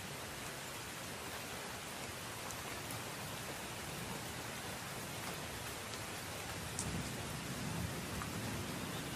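Steady rain, an even hiss with scattered drop ticks, with a low rumble swelling about seven seconds in.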